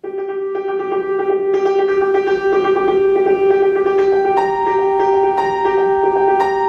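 Electronic background music: a held synth chord that builds, with new tones joining about half a second in, again a second later, and once more past the middle.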